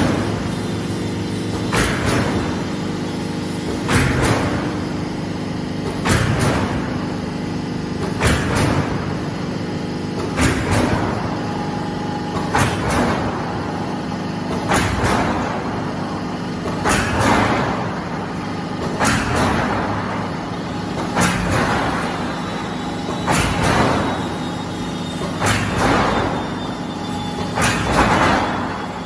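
Silo corrugated sheet roll forming machine running: a steady machine hum, with a sharp clack and a hiss that fades over about a second, repeating regularly about every two seconds.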